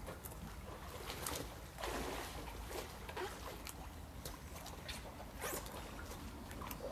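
Water lapping and splashing against a paddleboard as a person shifts their weight on it, with a larger splash about two seconds in and another past the halfway point, over a steady low rumble.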